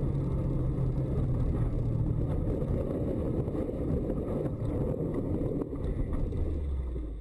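Car engine running and rough road rumble heard from inside the cabin as the car slides off a snow-covered road and ploughs into deep snow. The steady engine hum gives way after a couple of seconds to a dense rumble with a few knocks, and it eases off near the end.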